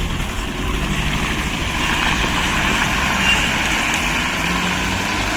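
Toyota Starlet's engine running steadily as the car drives under its own power on a newly fitted automatic gearbox.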